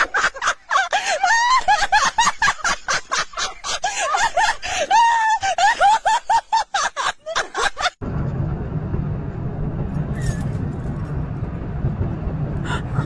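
People talking and laughing excitedly for about eight seconds. Then an abrupt switch to a vehicle's engine running with a steady low hum, heard from inside the vehicle.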